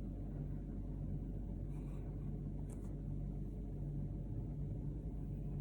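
A steady low hum with no speech.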